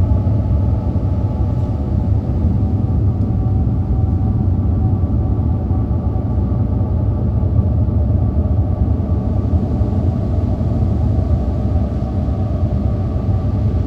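A steady low rumbling drone with several held tones above it, unchanging throughout.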